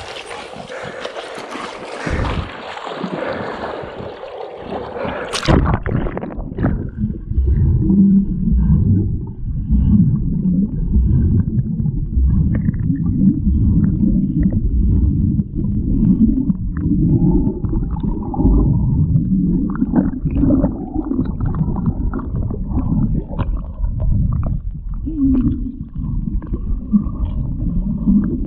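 Splashing water for about five seconds, then the camera's microphone goes under the swamp water: a loud, muffled low rumbling and gurgling heard from underwater.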